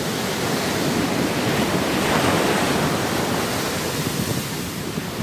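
Ocean surf: waves breaking and washing up a sandy beach, with a louder wave swelling about two seconds in.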